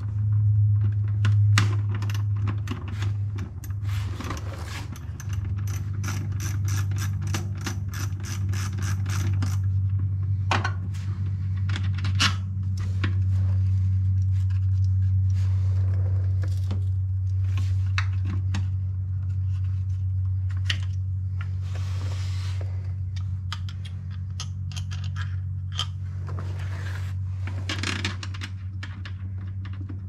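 A hand socket ratchet clicking in quick runs as it turns fasteners on the engine's AVCS plugs, with scattered metal clinks and scrapes of tools. A steady low hum runs underneath.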